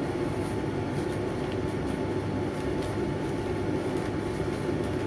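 A steady low hum from a machine in the room, unchanging throughout, with faint crinkles of joss paper being folded by hand.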